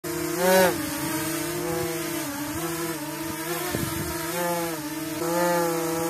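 DJI Mini 2 quadcopter hovering close by, its four motors and propellers making a buzzing whine. The pitch wavers up and down, with a louder swell about half a second in and another near the end.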